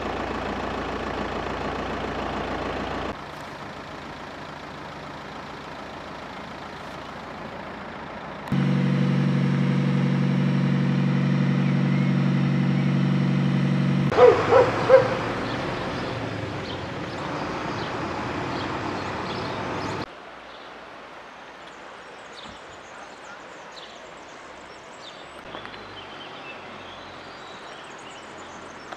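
Changing outdoor sound at a flood. A heavy engine idles steadily for several seconds, then a dog barks three times in quick succession. Near the end there is a quieter steady rush with faint high chirps.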